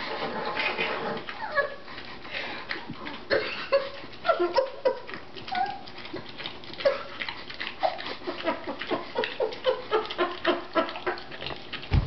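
A dog licking peanut butter: a quick run of wet licks and slurps, with many short squeaky sounds mixed in.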